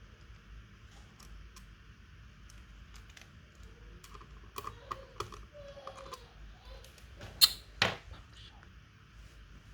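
Scattered small clicks and taps of hands and tools handling laptop parts, with two sharper, louder clicks about three-quarters of the way through.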